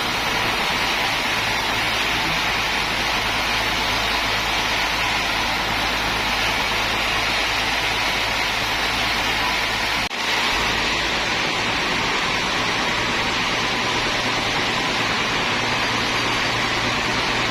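Sawmill machinery running with a steady noise and a low hum, briefly dipping about ten seconds in.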